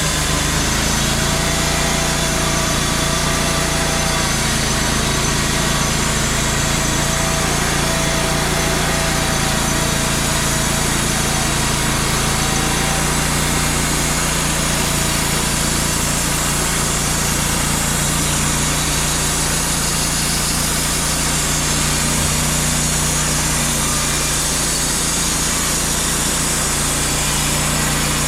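Wood-Mizer portable band sawmill running steadily: its engine and band blade going at a constant pitch, with a faint higher whine in the first half.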